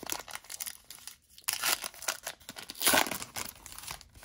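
Foil wrapper of a hockey card pack being torn open and crinkled by hand: a run of crackles, with a short lull a little over a second in.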